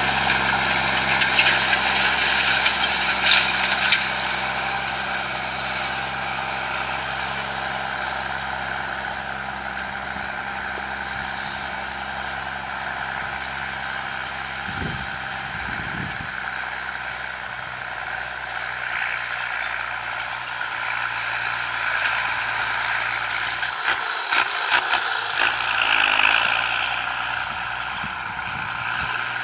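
New Holland 7840 tractor's diesel engine running steadily under load while it pulls an 18-disc harrow through dry soil. It grows fainter a few seconds in as the tractor moves away, then louder again near the end.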